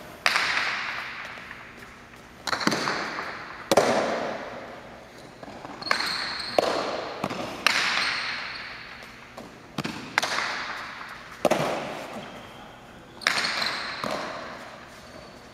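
Hard jai alai ball (pelota) being played with wicker cestas in an indoor court: a sharp crack every one to two seconds as it hits the walls and floor, each ringing out in the hall's long echo.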